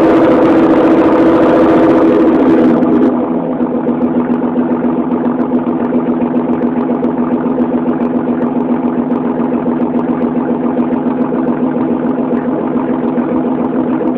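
1989 Oldsmobile Cutlass Supreme's 2.8 L V6 running with no muffler or resonator, its exhaust passing only through the catalytic converter. It is held at raised revs for about the first three seconds, then drops to a steady, pulsing idle, and stops abruptly at the very end.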